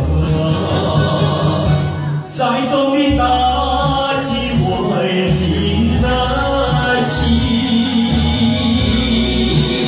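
A man singing into a microphone over a loud karaoke backing track with a heavy bass line, his voice amplified through the room's speakers. The sound dips briefly about two seconds in before the vocal line carries on.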